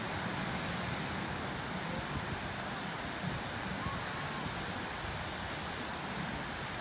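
Ocean surf breaking over a reef and washing onto a rocky beach: a steady, even rush of waves.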